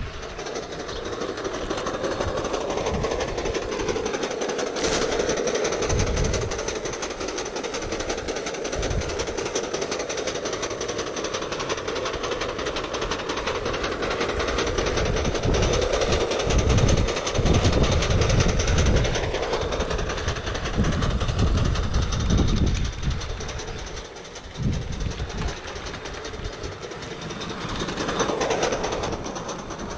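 A Gauge 1 model locomotive running on garden railway track: a steady mechanical rattle of wheels on rail, with a faint tone that slides down and back up as it comes and goes.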